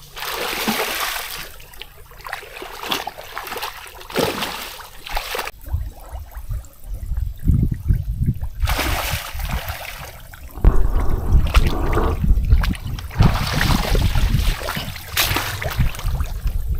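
Water splashing and sloshing in irregular bursts, joined through the second half by a strong low rumble.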